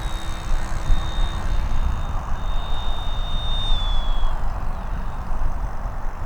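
Wind buffeting the microphone with a rough, uneven rumble, over a thin high whine from a distant RC model aircraft that dips slightly in pitch and fades out a little past halfway.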